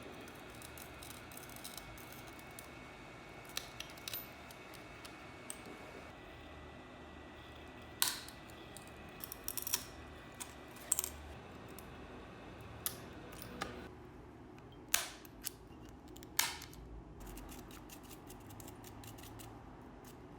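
Scattered sharp clicks and taps of small tools and parts being handled during iPhone back-glass repair work, over a steady low hiss. A faint steady tone sounds through the first several seconds.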